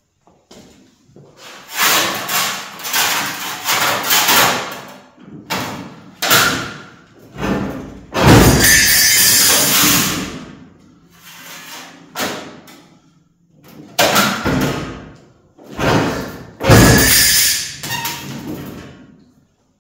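A run of loud metalworking noises on sheet metal, about nine separate bursts of banging and grating. The longest and loudest lasts about two seconds, starting about eight seconds in.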